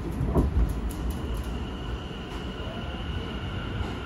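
Tobu 50050-series subway train's Hitachi IGBT-VVVF inverter and traction motors heard from inside the car while running, with a rising whine about half a second in, then a steady high-pitched tone over the rumble of the wheels on the rails. A few light clicks come in the first second or so.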